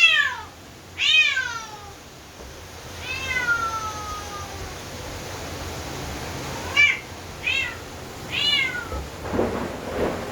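Domestic cat meowing six times, each meow falling in pitch, the third one long and drawn out. Near the end, thunder begins to rumble.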